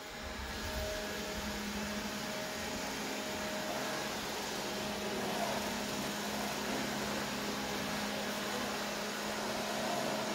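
Xiaomi robot vacuum cleaner's suction fan running with a steady whir and faint hum as it starts cleaning and pulls away from its dock.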